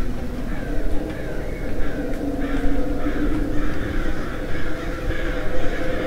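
Crows cawing in a steady run of harsh caws, about two a second, over a steady low hum.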